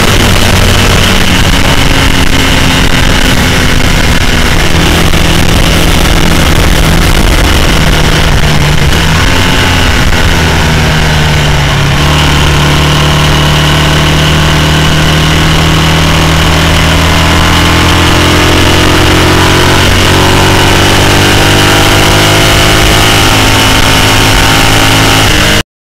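Loud onboard engine sound of a racing sidecar outfit running at speed on track, its note shifting with throttle and gear changes. The sound cuts off abruptly near the end.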